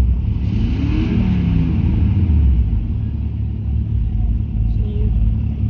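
Car engines running with a steady low rumble, with a brief rise and fall in pitch about a second in.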